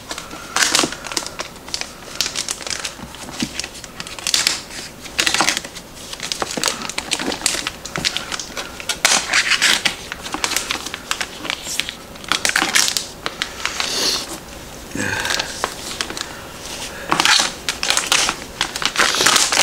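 Clear plastic wrapping crinkling and tearing as it is peeled off a cardboard box by hand, in irregular bursts of rustling.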